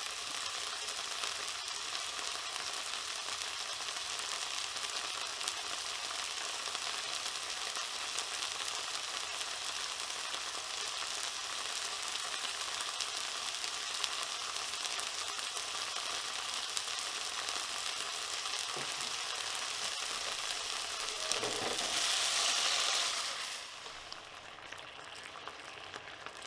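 Marinated beef strips frying in hot oil in a wok, a steady sizzle. It swells louder for a couple of seconds near the end, then falls off sharply to a quieter sizzle.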